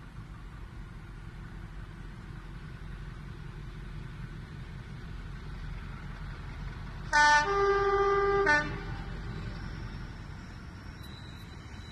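A Class 33 diesel locomotive's two-tone air horn sounds once about seven seconds in: a brief high note, then a lower note held for about a second before it cuts off.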